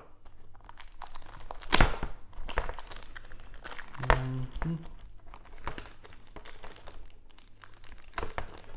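A knife slitting the clear plastic bag around a hard plastic graded-comic slab, the thin plastic crinkling and tearing in irregular crackles, with sharp clicks about two seconds in and again about four seconds in.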